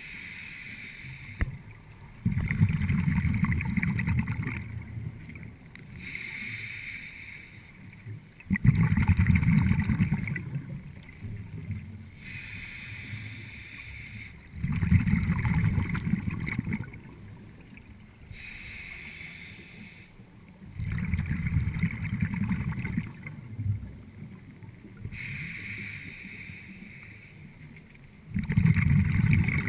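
A scuba diver breathing through a regulator underwater, recorded by a GoPro. Each breath is a quieter hiss of the inhale followed by a louder rush of exhaled bubbles lasting about two seconds, repeating about every six seconds, five breaths in all.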